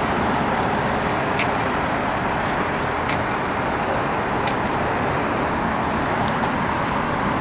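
Steady road traffic noise from cars passing on the street, with a few faint sharp cracks scattered through it.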